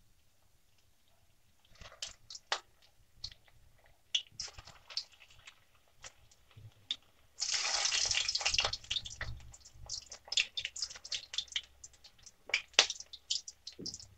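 Semolina-and-coconut dough balls deep-frying in hot oil in a kadhai: scattered crackles and pops, and a loud burst of sizzling about seven seconds in as more balls drop into the oil, then steady popping.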